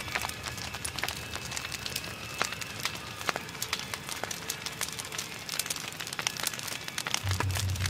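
Fire crackling as dry leaves burn in a house's rain gutter: a dense, irregular run of sharp pops and snaps over a low hiss. A low hum comes in near the end.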